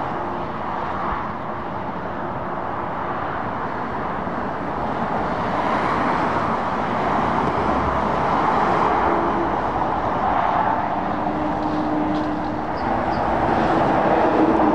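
Dual-carriageway traffic passing: tyre noise of lorries and cars on the road, swelling and fading as vehicles go by. A low steady engine hum comes in from about ten seconds in.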